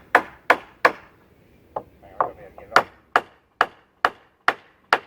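Hammer blows, a steady run of sharp strikes at about two to three a second, with a short pause about a second in.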